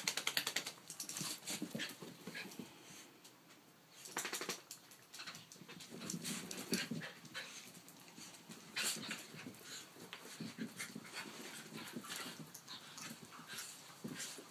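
Small dogs play-fighting, panting and scuffling, with many short, sharp sounds scattered throughout.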